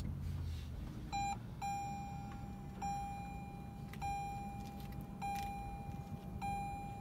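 Toyota Prius dashboard chime as the hybrid system is switched on by push-button: a short beep, then a held tone repeating about every 1.2 seconds. The petrol engine stays off, so there is no engine sound.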